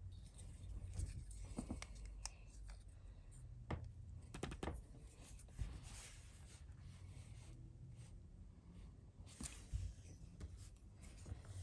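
Faint scratching of a Waterman 52V fountain pen's flexible gold nib writing on paper, with scattered light clicks and taps from handling the pen.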